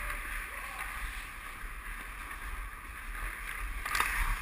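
Ice hockey play heard through a GoPro on a skater: a steady hiss of skate blades on the ice over a low rumble, with one sharp knock of stick or puck about four seconds in.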